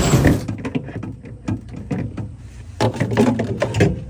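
Refrigerator racks being slid sideways and pulled out, with irregular clicks, knocks and rattles and a denser clatter about three seconds in.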